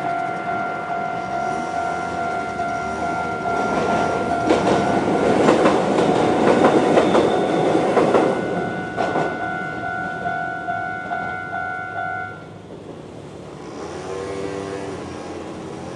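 A Japanese level-crossing alarm ringing at its standard, fairly fast tempo while a Konan Railway 7000 series electric train passes, its wheels clattering over the rail joints. The train is loudest from about 4 to 9 seconds in, and the alarm stops about 12 seconds in.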